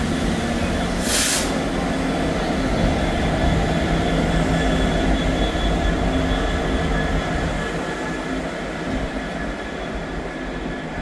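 GB Railfreight Class 66 diesel-electric freight locomotive, with its EMD two-stroke V12 engine running, passing at close range with the wheels rumbling on the rails. There is a short hiss about a second in. The engine sound fades after about seven seconds as the empty flat wagons roll by.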